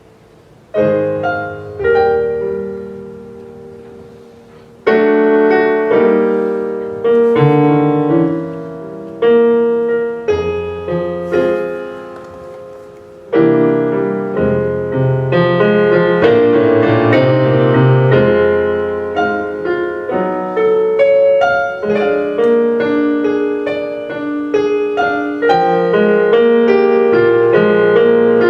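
Piano music: a few slow chords struck and left to ring away, then steadier, fuller playing from about halfway through.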